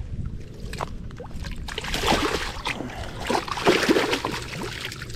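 Water splashing and sloshing close by, with scattered sharp splashes, loudest between about two and four and a half seconds in.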